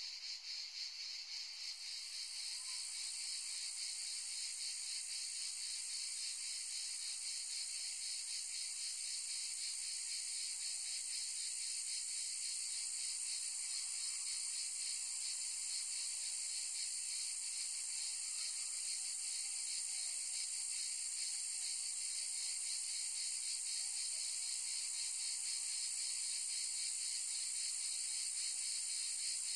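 A dense, steady, high-pitched chorus of insects buzzing, growing slightly louder about two seconds in.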